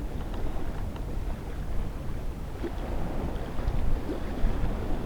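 Steady wind rumbling on the microphone over the wash of the sea.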